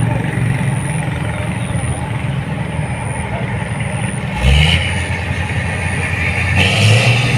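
Rice combine harvester's diesel engine running steadily, with a sudden jump in loudness and a low thud about four and a half seconds in, and the engine louder again near the end.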